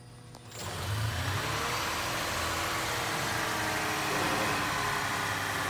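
Toyota 2GR-FXS 3.5-litre V6 of a Highlander Hybrid starting about half a second in, rising briefly in pitch as it comes up to speed, then running steadily.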